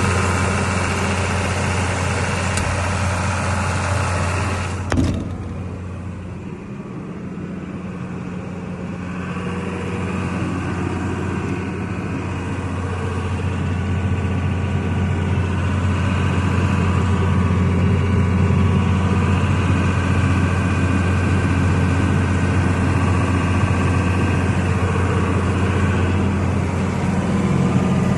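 Multiquip DCA100 diesel generator set's John Deere 6068 inline-six diesel running at a steady speed with a low, even hum. A single sharp knock comes about five seconds in; after it the sound turns duller for a few seconds, then gradually fills back out.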